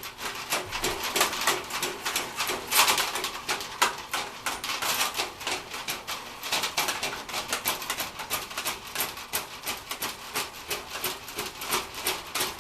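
Powered sewer snake running, its spinning cable clattering in rapid, irregular clicks over a steady motor hum.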